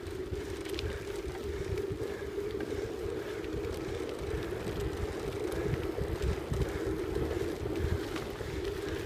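Bicycle tyres humming steadily on a hard-packed sandy track, with wind buffeting the microphone in gusts and a few light clicks.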